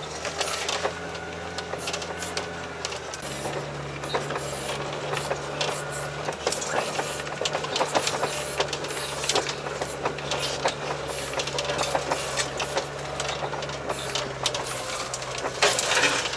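Tracked all-terrain vehicle driving through deep snow: its engine runs steadily under load, its note shifting about three seconds in, under a dense run of clattering and cracking from the tracks and brush.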